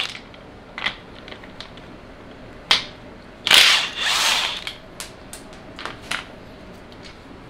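Cordless power tool on a socket extension running in one burst of about a second, spinning a 13 mm bolt out of a coilover's top hat (strut mount). Light metallic clicks and a sharp knock come before and after it.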